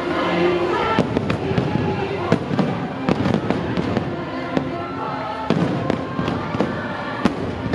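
Aerial fireworks shells bursting in quick succession: sharp bangs, starting about a second in, over the show's music.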